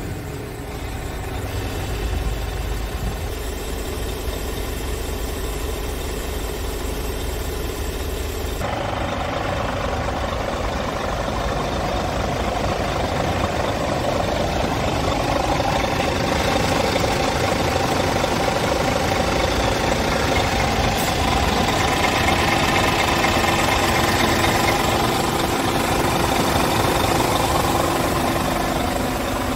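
Scania G tractor unit's diesel engine idling steadily, heard first from inside the cab and then, after about eight and a half seconds, up close at the front of the truck by the radiator.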